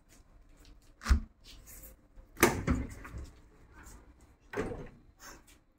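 Sliding door of a train sleeper compartment being opened: a sharp knock about a second in, a longer sliding noise around the middle, and another shorter knock near the end.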